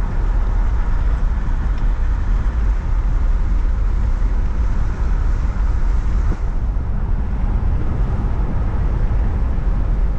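Car driving on a road, heard from inside: steady rumble of tyres and engine.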